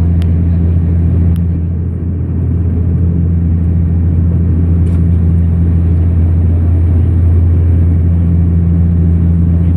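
Dash 8 Q400 turboprop heard inside the cabin by the wing: a loud, steady low drone from the engines and six-bladed propellers, a deep propeller tone over a rush of airflow noise. A few faint ticks sound near the start and about five seconds in.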